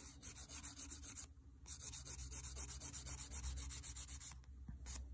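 Hand nail file scraping quickly back and forth across a fingernail, abrading off a coat of brush-on hard gel. Rapid strokes stop briefly about a second in, resume until about four seconds in, then come as a couple of single strokes near the end.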